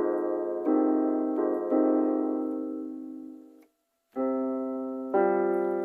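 Piano chords, each struck and left to ring and fade, three in the first couple of seconds; the sound drops out completely for about half a second, then two more chords are struck.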